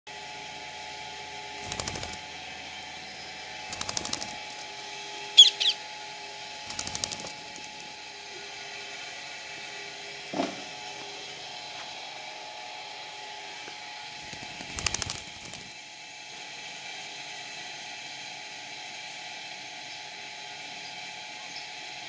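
Indian ringneck parakeets giving a few short, harsh calls, the loudest about five seconds in, over a steady mechanical hum.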